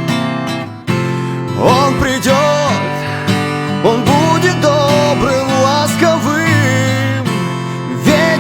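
Instrumental passage of a pop ballad: a lead melody line that slides and bends between notes over a steady chordal accompaniment.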